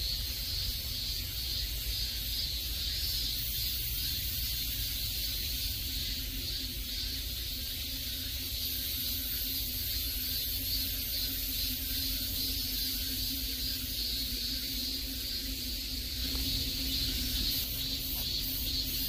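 Steady outdoor woodland ambience: a constant high hiss with a low rumble underneath and no distinct events.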